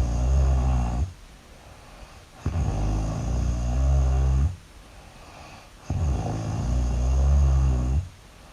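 Loud, low-pitched cartoon-style snoring: a snore tails off about a second in, and two more long snores follow, each about two seconds long, with quiet gaps of about a second and a half between them.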